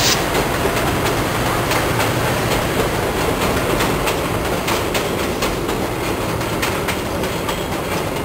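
VIA Rail passenger coaches rolling past on a steel girder bridge: a steady rumble with the wheels clicking over rail joints, easing off slightly near the end.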